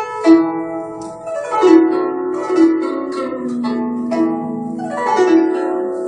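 Guzheng (Chinese plucked zither) played solo: quick runs of plucked notes, with sweeping glissandi across the strings twice and a long-ringing low note between them.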